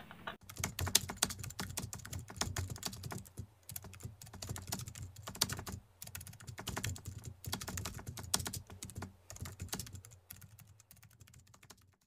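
Keyboard typing sound effect: a rapid, irregular run of key clicks, thinning out and fading near the end.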